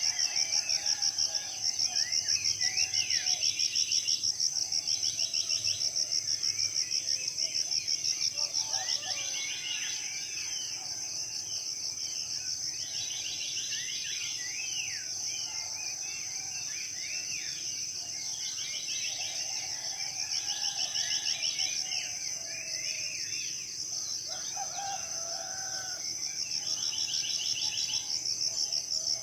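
Tropical forest chorus: a steady, rapidly pulsing high insect trill, with a second insect buzzing in short bouts every few seconds. Many birds chirp and whistle over it, and some lower, longer calls come now and then.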